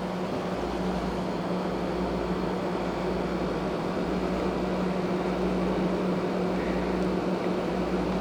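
A steady machine hum with a constant low tone, unchanging throughout.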